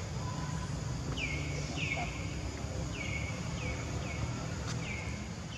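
A bird calling, about six short falling chirps in loose groups, over a steady low rumble of outdoor background noise.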